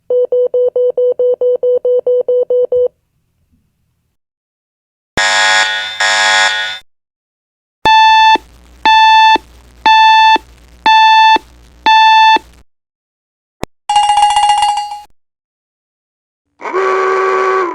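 A series of separate electronic alarm and warning sounds: a fast beeping at about four beeps a second for three seconds, a harsh buzzer sounding twice, five long beeps about a second apart, a single short tone, and near the end a loud, lower horn-like blast.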